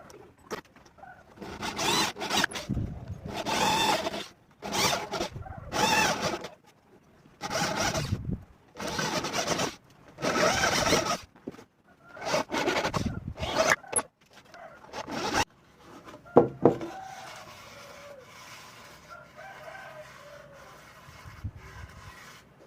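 Wood being cut with a hand saw in a series of rough strokes, which stop about two-thirds of the way through.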